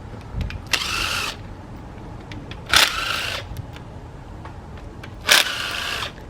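Small cordless impact wrench run in three short bursts, its motor whine rising and falling each time, as it undoes the oil pump bolts on a 5.3 LS engine. The owner calls the impact weak and says it needs charging.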